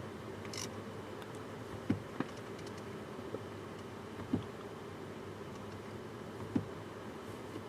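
A handful of sharp, irregularly spaced clicks from the car's interior controls being pressed, over a steady low hum in the cabin.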